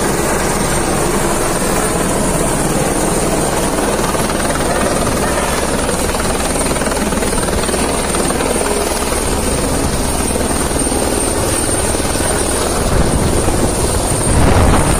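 Helicopter coming in to land, its rotor and engine running loud and steady with a steady high whine. Near the end, as it comes down close, the sound grows louder and deeper.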